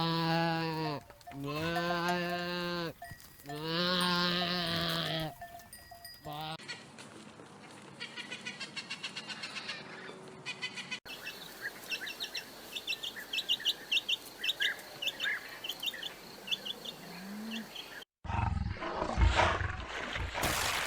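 Animal calls cut together from several clips: three long, loud pitched calls of about a second and a half each in the first five seconds. After abrupt cuts, a run of quick high chirps follows.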